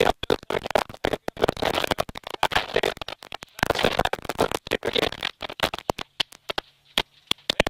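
Rally car's in-car sound on a gravel stage, engine and road noise cutting in and out several times a second as if through a gated intercom feed. Near the end it thins to a few short spikes over a faint steady hum.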